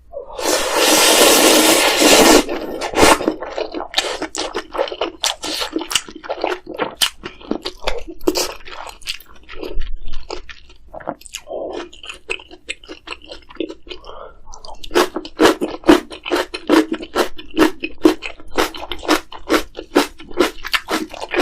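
A long, loud slurp of spicy ramyeon noodles for about two seconds, then close-miked mouth sounds of steady chewing with many sharp, crunchy clicks and wet squelches.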